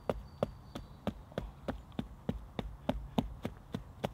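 Quick, even tapping with a hand tool against stone and packed clay, about three sharp knocks a second, as clay is worked in around a stone slab at the edge of a fire pit.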